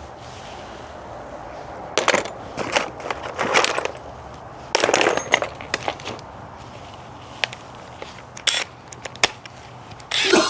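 Metal tools and parts clinking and clattering in short bursts, about two seconds in, again around five seconds in, then a couple of single clinks near the end.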